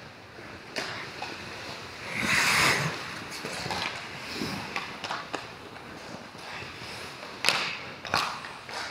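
Ice hockey play on a rink: a burst of scraping hiss about two seconds in, as of skate blades digging into the ice, and scattered sharp clacks of sticks and puck.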